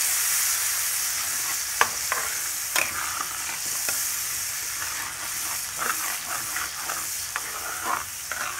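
Spiced masala paste of ginger, onion and tomato sizzling in hot oil while a metal spatula stirs it, with a steady high hiss and sharp, irregular scrapes of the spatula against the pan. This is the masala being fried down until the oil separates.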